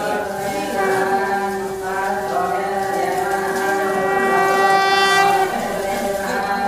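Conch shell (shankha) blown in one long steady note, starting about a second in and lasting close to five seconds, growing louder and brighter toward its end, over men chanting mantras.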